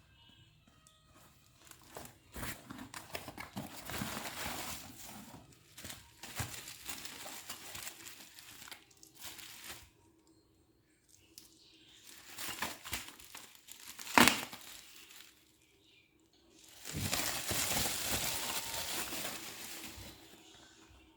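Packaging crinkling and rustling in irregular bursts as it is handled, with one sharp click about two-thirds of the way through.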